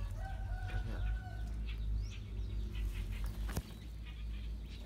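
A chicken clucking, a few short drawn-out notes in the first second or so, over a steady low rumble, with one sharp click about three and a half seconds in.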